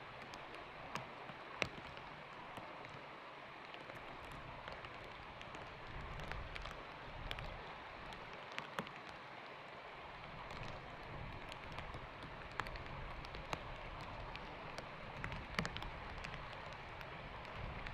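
Light rain falling steadily on water and stones: an even hiss with scattered sharp drop ticks.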